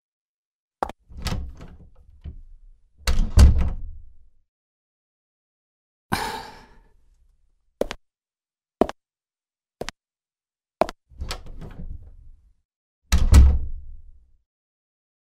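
Sound effects of footsteps and doors as people leave the room: single clicks of steps on a hard floor, a short scraping rattle about six seconds in, and heavy door thuds with a reverberant tail, the loudest about three and a half seconds in and again near the end. Four of the steps come evenly about a second apart just before the last thuds.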